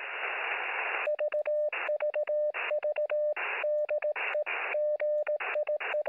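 Radio receiver audio: about a second of static hiss, then a steady mid-pitched Morse code tone keyed in short and long elements, with static hiss returning in the gaps between them.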